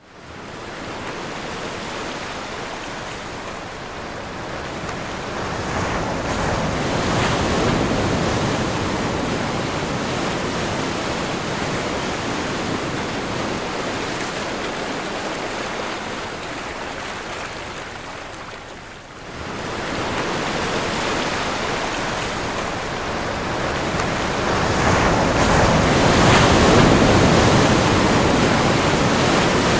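Rough sea with strong wind: heavy waves breaking and spray against a cargo ship's bow, a steady rushing noise that swells louder in surges, dips briefly about two-thirds of the way through, and builds to its loudest near the end.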